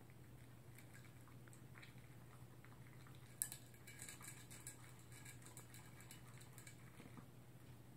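Toy poodle eating from its bowl: faint chewing and small clicks of food and muzzle against the bowl, with one sharper click about three and a half seconds in.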